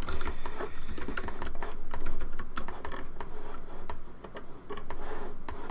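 Computer keyboard keys and mouse buttons clicking, many irregular clicks in quick succession.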